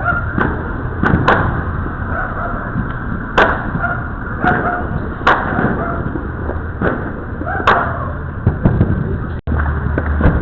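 Fireworks going off around a residential neighbourhood: about ten sharp bangs and pops at irregular intervals, a second or so apart, over a steady low rumble of background noise.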